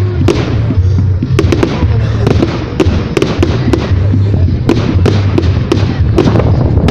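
Fireworks going off in quick, irregular succession: many sharp bangs and crackles, several a second, with music playing underneath.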